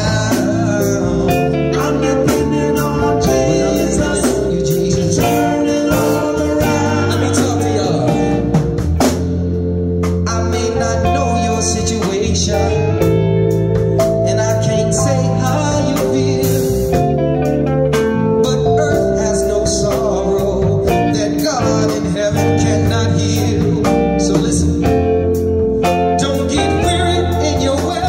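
Live gospel band music with guitar, a strong bass line and drum kit, and singing over it.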